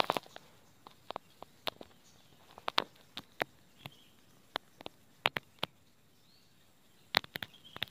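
A scatter of sharp, irregular clicks and snaps, about a dozen, with a couple of faint high bird chirps between them.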